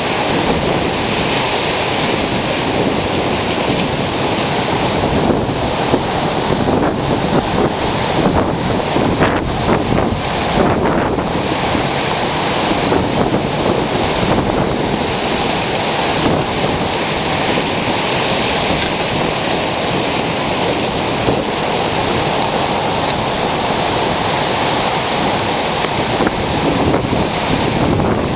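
Ocean surf breaking on the shore: a steady, loud rush of waves.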